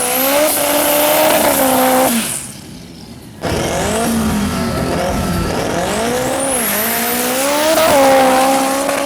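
Drag car's SR20 four-cylinder engine running hard, its pitch rising and falling, with a high whine that climbs steeply. About two seconds in the sound drops away, then returns abruptly a second later.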